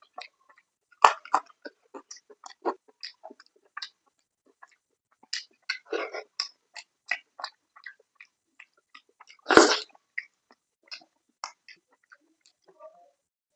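Close-miked eating sounds of a person eating fish curry and salad: chewing and lip smacks in quick, irregular clicks, with a louder sharp smack about a second in and another near the tenth second.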